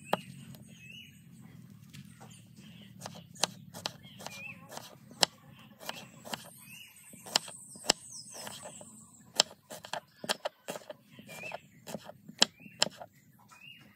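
Knife cutting vegetables on a cutting board: sharp, irregular knocks. A bird calls again and again in the background.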